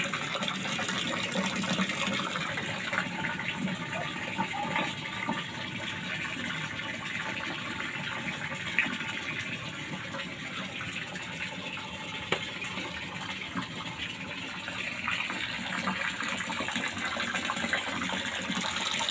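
Running water, a steady rushing pour like a tap filling a basin, with a couple of small knocks.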